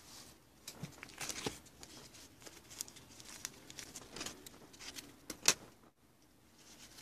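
Paper towel rustling and crinkling in the hands as a folded packet of leaf cuttings is picked up and opened, with scattered light crackles; the sharpest crackle comes about five and a half seconds in.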